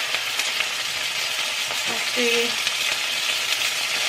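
Thin slices of pork sizzling and frying in oil in a very hot cast-iron pan, a steady crackling hiss.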